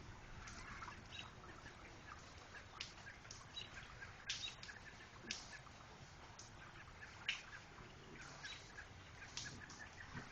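Water dripping in the quiet after a hail storm: sharp, irregular drips about one or two a second, with faint chirps in the background.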